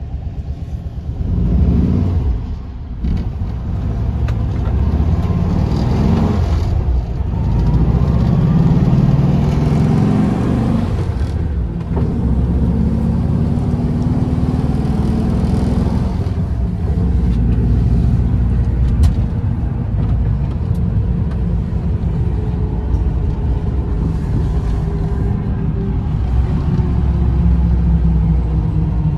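Classic Volkswagen Bus under way, heard from inside the cabin: the rear-mounted air-cooled flat-four engine runs with a low rumble, its note rising several times as the bus gathers speed.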